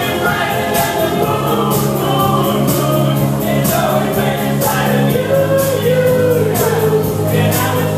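Pop song playing, with a singing voice over sustained bass notes and a steady drum beat.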